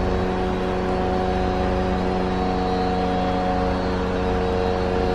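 Convertible's electric folding roof mechanism running as the roof lifts: a steady motor hum with no change in pitch.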